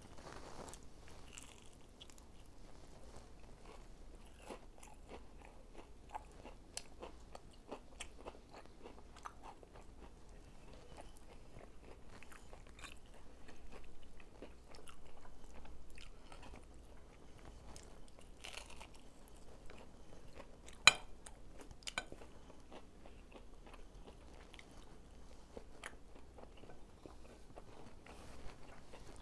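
Close-up chewing and crunching of crispy fried chicken, with irregular small crackles and mouth sounds. A single sharp click stands out about two-thirds of the way through.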